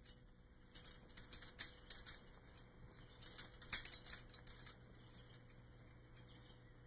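Faint, irregular crackling and ticking of footsteps through forest underbrush, thickest in the middle and fading near the end, over a faint steady low hum.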